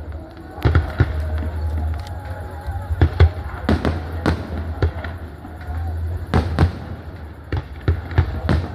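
Fireworks going off in an irregular string of sharp bangs, about a dozen, some in quick pairs, over a steady low rumble.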